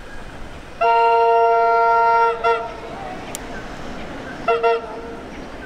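Horn on an approaching Tait electric train: one long blast of about a second and a half with a short clipped note right after it, then two quick short toots about two seconds later, over the train's steady running noise.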